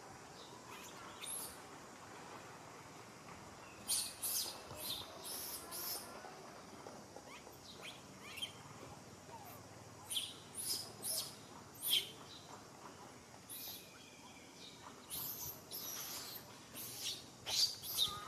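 High-pitched animal chirps, short and sharp, coming in three quick bunches a few seconds apart, over faint background hiss.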